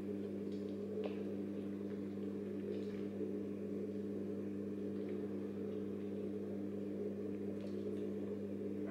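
A steady low hum with a few unchanging pitches, with a few faint light ticks over it.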